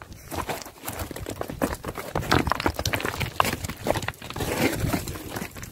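Irregular crunching footsteps on loose stones, gravel and dry pine needles.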